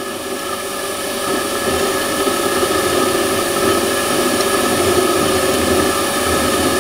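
Warco WM180 mini lathe running, its spindle turning a metal bar while an indexable left-hand turning tool takes a 0.25 mm cut: a steady motor and gear whine over the hiss of the cut, growing a little louder over the first few seconds.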